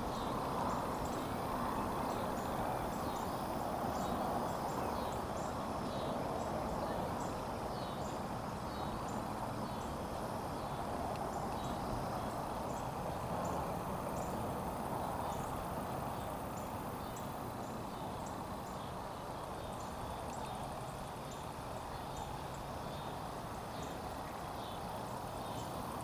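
Shallow river water running and babbling over rocks in a steady wash, with faint high-pitched ticks through the first two-thirds.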